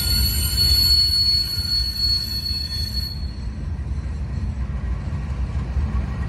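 Slow-moving CSX freight train of coal cars rolling past. The wheels on the rails make a steady low rumble, and a high, steady wheel squeal fades out about halfway through.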